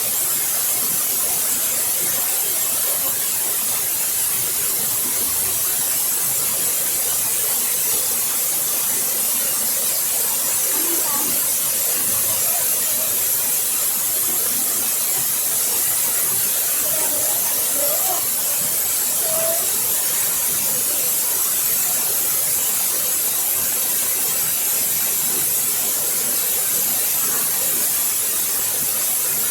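Waterfall: falling water rushing and hissing in a steady, unbroken wash with a bright, hissy top.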